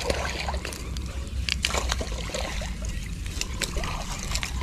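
Water splashing and sloshing with scattered sharp clicks and knocks as a speared fish is pulled in through the water.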